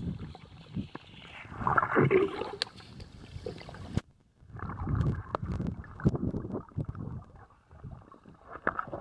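Muffled sloshing and gurgling of lake water heard from a camera held underwater, with scattered knocks and bumps; the sound cuts out for about half a second some four seconds in.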